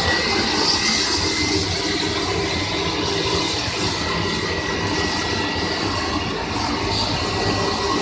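13-die aluminium rod breakdown (RBD) wire drawing machine running: a steady mechanical rumble and whir of its capstans, with a thin steady high whine over it.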